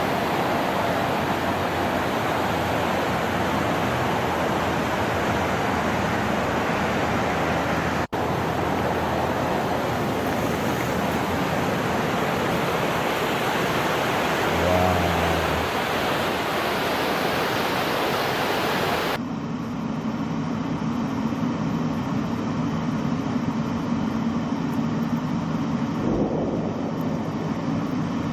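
Loud, steady rushing noise that cuts off abruptly about two-thirds of the way through to a lower, steady rumble.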